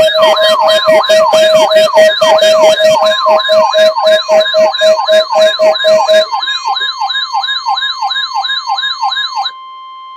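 Electronic alert siren sweeping up and down about three times a second, over a steady weather-radio warning tone. At first it is layered with a pulsing beep and sharp clicks, which stop about six seconds in. The siren cuts off near the end, leaving the steady alert tone alone for a moment.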